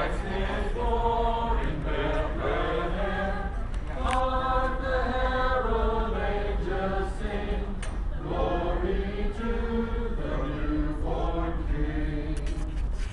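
Small choir of men and women singing together, in phrases a few seconds long with short breaks between them.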